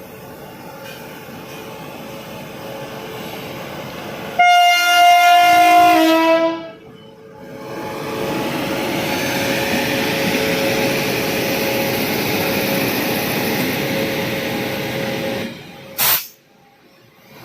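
Train locomotive's air horn sounding one loud blast of about two seconds, stepping down in pitch as it ends, as the train departs. The steady rumble of the train running follows, with a held hum, then a sharp click near the end.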